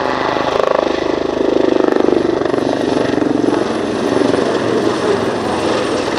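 Leonardo Wildcat HMA.2 helicopter in display flight: the fast chop of its rotor blades over steady engine noise with a faint high turbine whine, swelling to its loudest about two seconds in.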